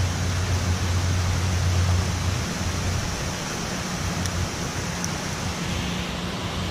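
Steady rushing of water pouring out through a hydroelectric dam's gates into the river, with a low hum underneath that is strongest for the first two seconds or so and then weakens.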